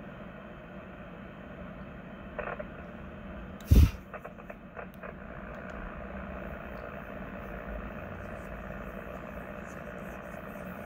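Steady hiss of band noise from an ICOM IC-706MKIIG transceiver's speaker as its tuning dial is swept down the 80-metre band in lower sideband, with no station coming through: the receiver is deaf, a fault the owner wonders may be a bad PLL. A sharp knock about four seconds in, and a few faint crackles.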